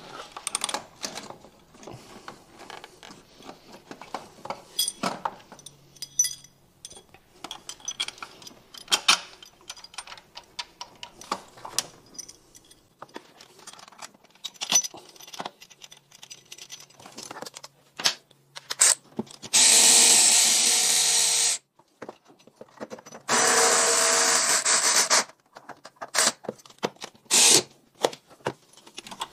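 Scattered light metallic clinks and clicks of bolts and hand tools, then a cordless power tool runs steadily twice, about two seconds each, a little past halfway, driving in the starter motor's two 14 mm mounting bolts.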